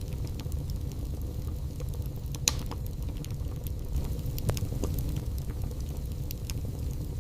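Wood fire burning in a fireplace: a low, steady rumble of flames with scattered crackles and pops, the loudest pop about two and a half seconds in.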